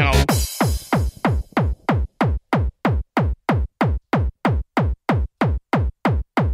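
Outro of a makina hard-dance track: the full mix drops out, a noise sweep fades away over about a second and a half, and a bare drum-machine kick drum carries on alone, about three beats a second, each with a falling pitch.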